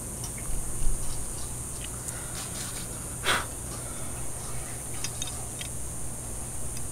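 Small metal clicks and clinks of a combination wrench on the nut and steel of an LED light-mount bracket, turned by hand, with a short scrape about three seconds in.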